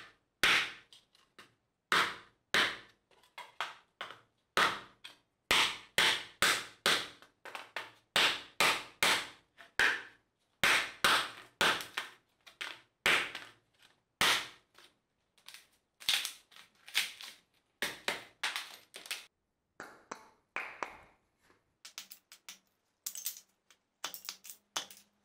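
Hatchet blade chopping into a thin wooden board on a wooden chopping block: a long run of sharp, loud chops, about one or two a second. After a short pause about two-thirds of the way through come lighter, quicker taps as a small stick is split.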